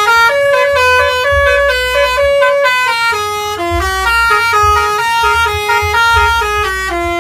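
Telolet multi-tone musical horn playing a quick tune of stepped notes, several pitches sounding together, over a low rumble that comes and goes.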